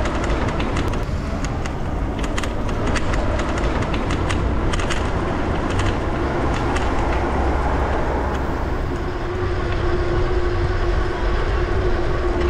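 Wind buffeting the camera microphone and road rumble from a moving bicycle, with scattered sharp clicks and rattles over the first few seconds. A steady hum joins about nine seconds in.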